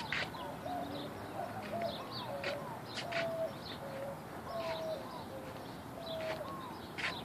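Birds calling: a run of short, repeated, pitched calls about once a second, with sharper, higher chirps mixed in.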